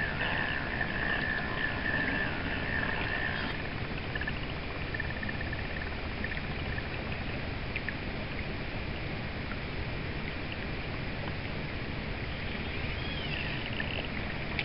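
Steady rush of shallow stream water flowing around a wading angler's legs, with a faint high chirping for the first few seconds and a short high call near the end.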